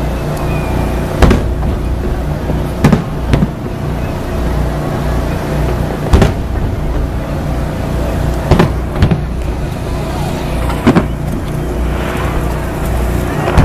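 Fireworks shells bursting with sharp booms at irregular intervals, about eight in all, some in quick pairs. A steady low engine-like hum runs underneath.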